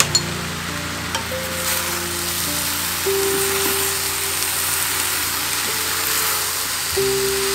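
Turkey, cabbage and vegetables sizzling in a stainless steel frying pan as a wooden spatula stirs them, with a few light clicks in the first second or so. Background music plays underneath.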